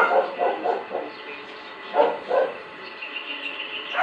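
A dog barking in short bursts: several barks in quick succession at the start, two more about two seconds in, and another at the end.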